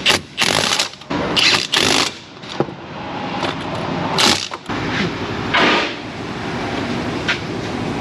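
Several short bursts of mechanical rattling and clanking from hand work on a car's wheel and suspension parts, over a steady low hum of shop machinery.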